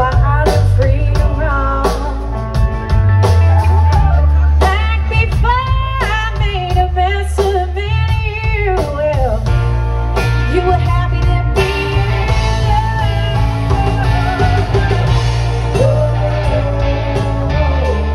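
Live blues-rock band playing: a woman singing over electric guitar, bass, drums and keyboard, her voice clearest in the middle.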